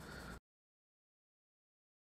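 Near silence: a faint hiss for a moment, then the sound cuts out entirely.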